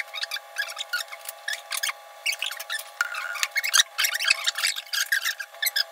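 Small clicks, scrapes and rustles of people eating rice by hand from a shared plate, with a spoon scraping a metal pot as rice is served. A faint steady hum runs underneath.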